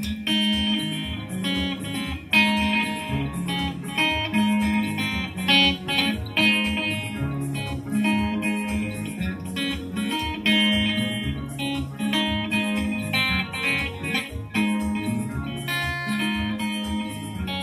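Soukous played live: bright, quick plucked electric guitar lines with keyboard accompaniment and a bass line over a steady beat.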